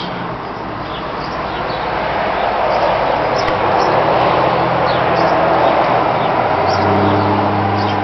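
Short, high hummingbird chirps scattered over a steady outdoor rushing noise that swells to its loudest about halfway through. A low steady hum joins near the end.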